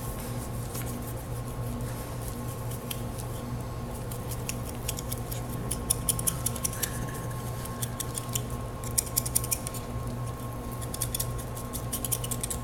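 Boning knife cutting and scraping against lamb leg bone during deboning: scattered small clicks and scrapes that come in clusters, busiest about halfway and near the end, over a steady room hum.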